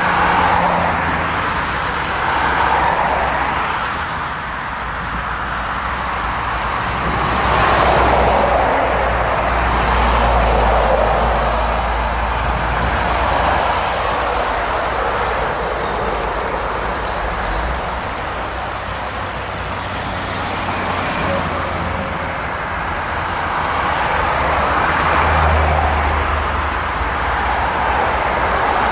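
Lorries and cars passing one after another on a busy road, the tyre noise swelling and fading with each pass, over the low rumble of heavy lorry diesel engines.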